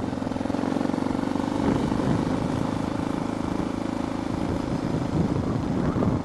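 Suzuki DR650's single-cylinder engine running steadily while riding, heard through a microphone inside the rider's helmet with wind and helmet noise over it.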